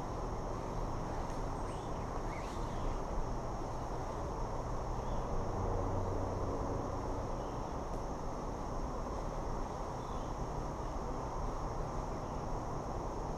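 Steady chorus of insects, a constant high-pitched drone, over an even low rushing noise, with a few faint short chirps.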